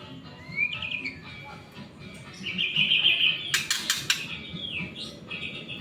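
White-rumped shama (murai batu) singing: a rising whistle, then a long bright trill, a quick burst of sharp clicking notes midway, a falling glide, and a held whistled note near the end.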